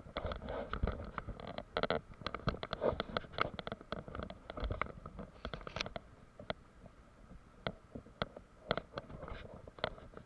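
Irregular clicks, taps and scraping, close to the microphone.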